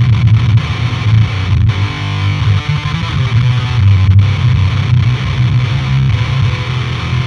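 Schecter electric guitar played through the Otto Audio Blown Out Wall chainsaw-distortion plugin, chugging low riffs with brief stops about a second and a half and about four seconds in. The tube drive has the tone badly clipped and broken up, brutal, with the buzzsaw high end buried in the clipping and distortion.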